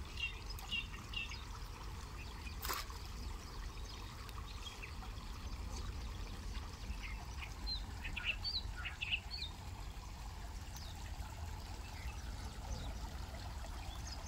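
Shallow creek water trickling over rocks, with short high bird chirps now and then and a single sharp click about three seconds in.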